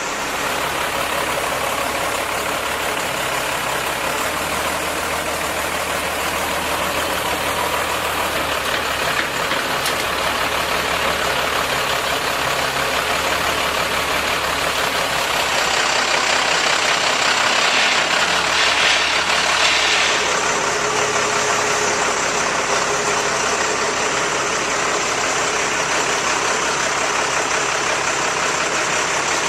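Boom truck engine running steadily at idle, getting a little louder about halfway through.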